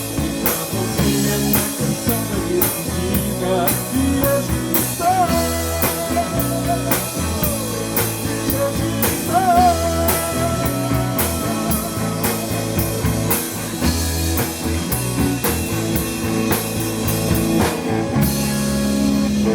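Rock band playing: a drum kit keeps a steady beat under bass and long held lead notes with vibrato. The cymbals thin out near the end.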